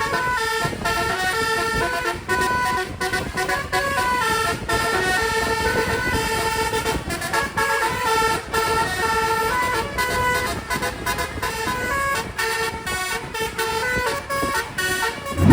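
Telolet multi-trumpet air horns on Indonesian tour buses playing quick melodic tunes, several horn notes sounding together and stepping from pitch to pitch without a break.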